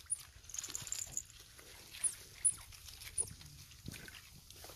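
Otter giving a few short, very high-pitched chirps and a brief squeal.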